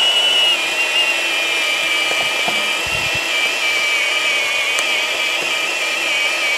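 Milwaukee M18 FPT114 cordless pipe threader running under load, its motor and gearbox whining steadily as the die head cuts a thread onto the pipe. The whine dips slightly in pitch about half a second in.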